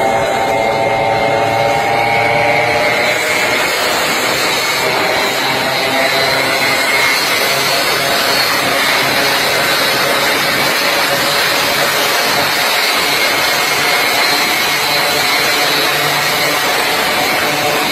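Small motorcycles running at speed in a group, their engines heard through steady, heavy wind noise from riding alongside. An engine tone stands out in the first few seconds, then sinks into the rush.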